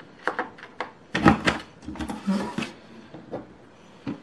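Corner-rounder punch of a Stampin' Up envelope punch board being pressed down on paper: a series of sharp plastic clicks and knocks, the loudest about a second in, with paper and board handling between them.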